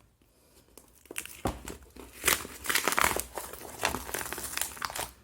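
Sealed product packaging crinkling and tearing as it is worked open with a knife, in irregular crackles that start about a second in.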